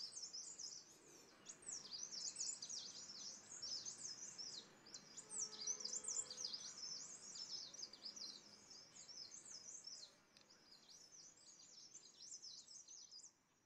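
Small birds twittering: many quick, high-pitched chirps overlapping, thinning out in the last few seconds.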